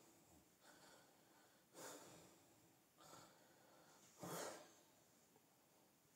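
Near silence: faint room tone with two soft, short breaths close to the microphone, about two seconds in and just after four seconds in.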